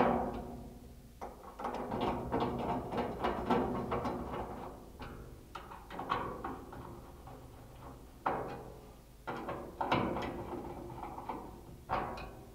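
Hand screwdriver tightening screws into a steel shed panel: irregular knocks and clinks of the tool and screws against the metal, each one ringing on in the steel.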